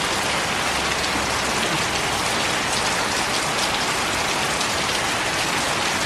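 Steady rain falling: an even hiss made of many small drop patters.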